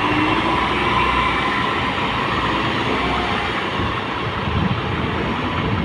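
Diesel engine of a new Sany tractor-head truck running steadily as the truck drives slowly.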